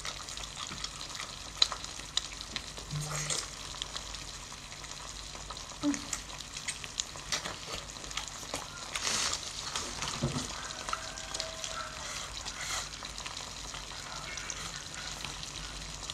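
Close-up wet chewing and sucking of saucy seafood, with many small crackling clicks throughout.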